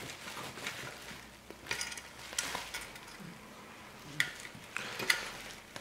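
Faint, scattered metallic clicks and scrapes from a Golf Mk1 headlamp and its metal mounting ring and brackets being handled and worked loose by hand, with a few sharper clicks about two and four seconds in.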